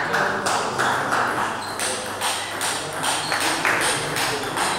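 Spectators clapping in a steady rhythm, about three claps a second, after a point in a table-tennis match.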